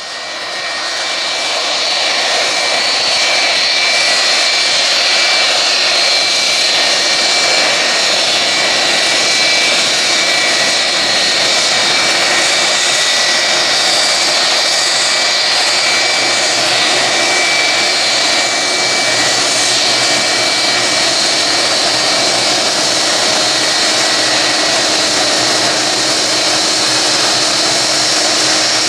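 Airbus A330-200 airliner's twin jet engines running steadily: a loud rush of jet noise with high whining tones on top.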